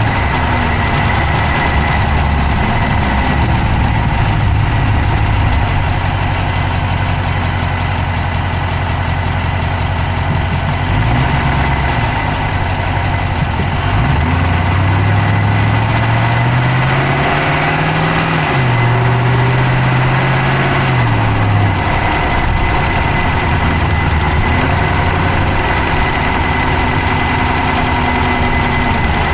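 Dodge Charger's Hemi V8 idling, heard close up from inside the engine bay, with a fast clicking running through it. About halfway through the engine is revved up, held a few seconds, then drops back to idle.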